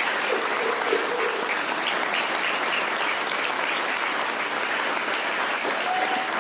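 Large crowd of wedding guests applauding steadily, a few voices calling out briefly above the clapping.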